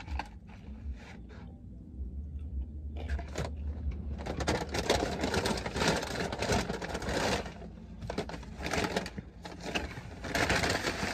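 Paper fast-food bag rustling and crinkling in irregular bursts as hands dig through it, starting about three seconds in.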